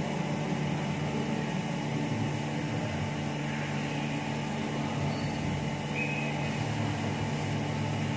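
Steady hum of a powered-up CNC milling machine standing idle and not cutting, its fans and pumps running, with several steady low tones.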